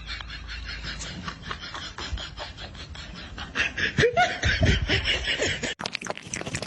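A person laughing in quick breathy snickers, louder with a few rising and falling voiced sounds about four seconds in; the sound changes abruptly near the end.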